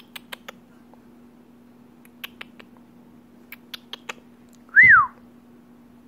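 A few sharp clicks in small clusters, then one loud whistle about five seconds in that rises and falls in pitch.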